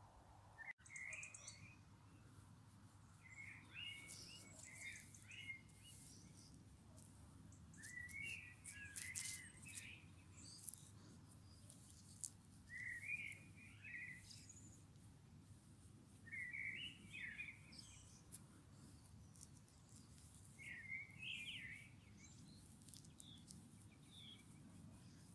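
A bird singing faintly: short chirping phrases repeated every three to four seconds.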